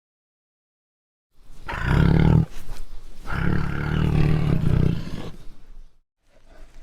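Two loud, low animal calls, a short one and then a longer one of nearly three seconds, starting after a second and a half of silence.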